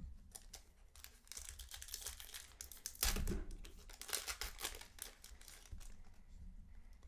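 Foil Pokémon booster pack wrapper being torn open and crinkled by hand, in irregular crackles with the loudest tear about three seconds in.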